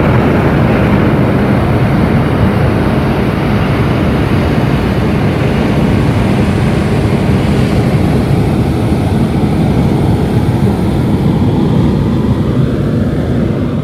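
Hot-air balloon's propane burner firing in one long blast: a loud, steady rush of flame that starts suddenly and dies away near the end.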